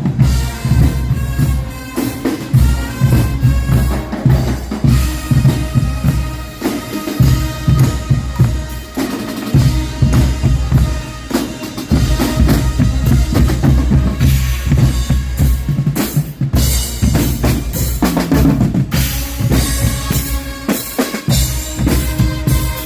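Guggenmusik band playing loud carnival marching music: heavy bass drum and snare beats driving under a mass of brass.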